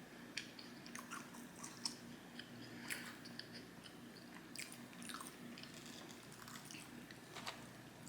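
Close-miked chewing and biting: irregular small clicks and wet mouth sounds as food is eaten, over a faint steady low hum.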